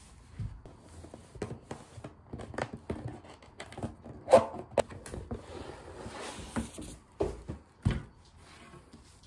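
Handling of a cardboard cake box while it is opened by hand: a satin ribbon and cardboard rustling and sliding, with irregular knocks of the box against the table. The loudest knock comes about four seconds in, two more come near the end, and there is a stretch of sliding and scraping between them.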